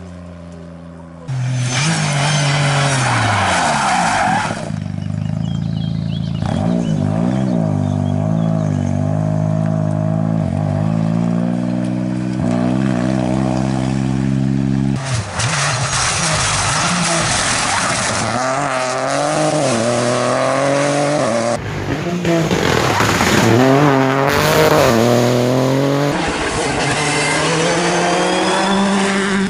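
Rally cars, a Peugeot 208 Rally4 and a Citroën C3 Rally2, driven flat out on tarmac: turbocharged engines revving hard, pitch climbing and then dropping at each gear change and lift. Several short passes follow one another with abrupt changes between them.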